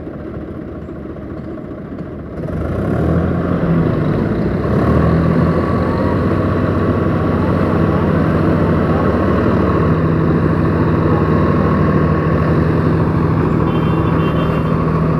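Swaraj 855 FE tractor's diesel engine revving up about two seconds in, then running hard and steady under load in loose sand, with a second tractor engine running alongside.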